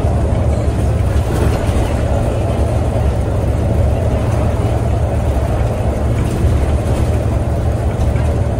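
Scania OmniCity bus driving along at a steady speed, heard from inside the passenger cabin near the front: an even drone of engine and road noise with a strong low hum.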